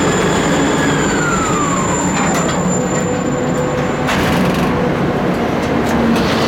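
Loud, steady construction-site machinery noise, with a whine that falls in pitch between about one and two and a half seconds in and a high steady tone that stops about four seconds in.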